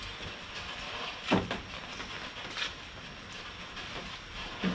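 Steady heavy rain falling, with three short knocks of things being handled on a glass tabletop, the loudest a little over a second in and another near the end.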